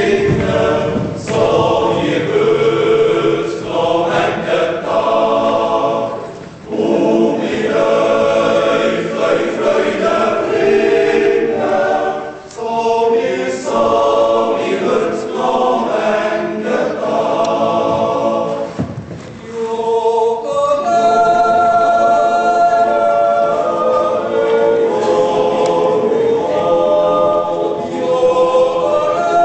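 Yodel-club choir singing a cappella in harmony, in phrases with short breaks, then long held chords in the last third.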